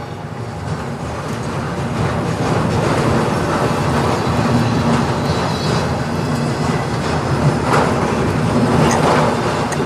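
Freight cars of a CN manifest train rolling past on the rails: a steady rumble of steel wheels on track that swells over the first couple of seconds and then holds.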